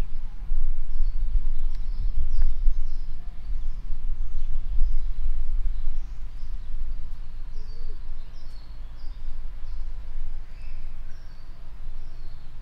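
Loud low rumble that rises and falls, with small birds giving many short, high chirps above it.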